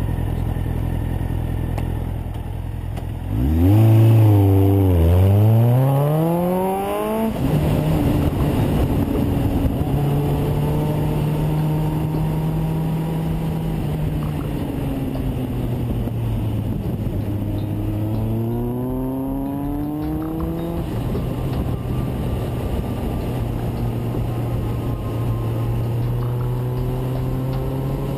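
Suzuki Bandit motorcycle's inline-four engine under way, wind rushing over the microphone. About four seconds in it revs up hard, pitch rising, dipping once at a gear change, then rising again. After that it cruises at a steady note, with another climb in revs around eighteen seconds.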